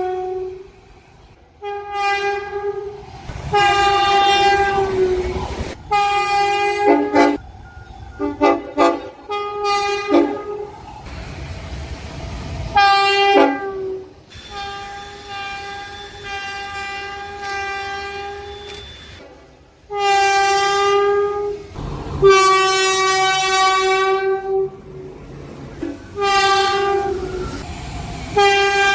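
A Tilt Train's town horn sounding again and again on a single note: a series of long and short blasts, with a quick run of short toots about a third of the way in and one long, softer held blast near the middle.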